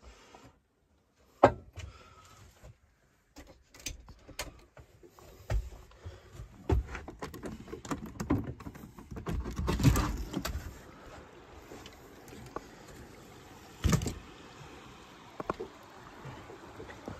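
Handling noise from a phone carried by hand while someone climbs out of a truck camper: scattered knocks, clunks and rustles, with the loudest knocks about a second and a half in, around ten seconds in and near fourteen seconds, plus footsteps. From about seven seconds in a steady outdoor hiss runs under them.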